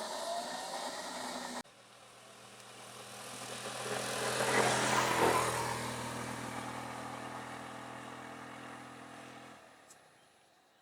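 Insect chirping is cut off abruptly, then a motor vehicle drives past on the road: its engine and tyre noise grow louder to a peak about halfway through and fade away near the end.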